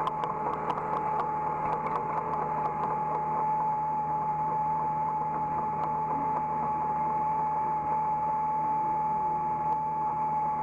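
Hydraulic excavator heard from the operator's cab: the engine and hydraulics running steadily with a constant high whine, and a run of light ticks during the first few seconds.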